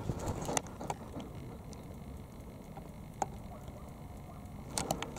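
Low, steady rumbling background noise with a few scattered clicks, and a quick run of sharper clicks near the end.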